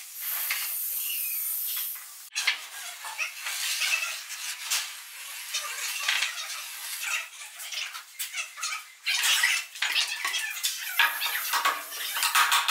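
Work sounds of laying a stair tread. Wet mortar is scraped and spread on the step, and spray foam adhesive hisses and squeaks as it is squirted from its can in lines. Near the end come a few sharp knocks as the wooden tread is tapped down into the foam.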